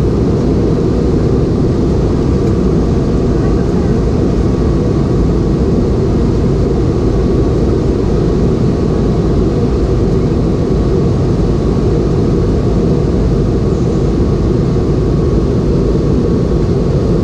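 Steady in-flight cabin noise of a Boeing 717: the rear-mounted Rolls-Royce BR715 engines and airflow make an even, unbroken sound, heaviest in the low range, with a faint steady high tone.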